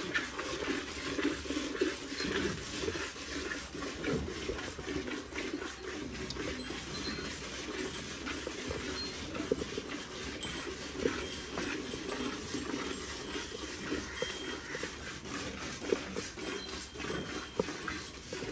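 Hand-milking of a Holstein Friesian cow: jets of milk squirting from the teats into a stainless steel pail, a quick, uneven run of spurts.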